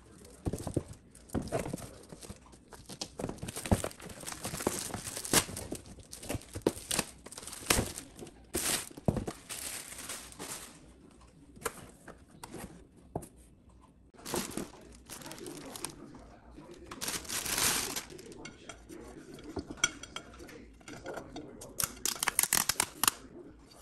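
Cardboard box and paper packaging being handled and opened, with sliding, rustling and crinkling and a few sharp knocks along the way.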